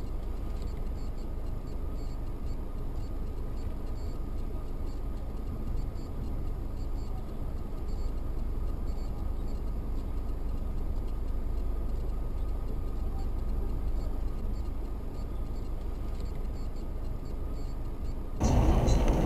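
Steady road and engine rumble inside a moving car, picked up by a dashcam microphone while cruising on a highway. Near the end it cuts abruptly to a louder noise.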